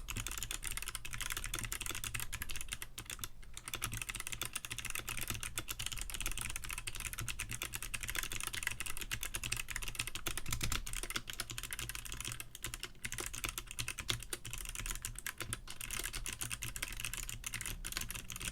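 Rapid random bashing on a mechanical keyboard with clicky Kailh Box Navy switches, cheap ABS keycaps and a plastic case: a dense, continuous clatter of key clicks, with a brief pause a few seconds in.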